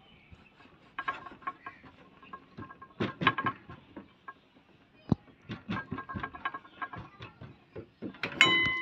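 Hands patting and pressing a potato-stuffed paratha flat on a stainless steel table: a string of soft slaps and taps. A louder pitched call sounds near the end.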